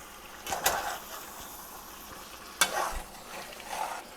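Chicken pieces sizzling in oil and onion-garlic paste in a pot while a spoon stirs them, with three louder scraping strokes against the pot over the steady sizzle.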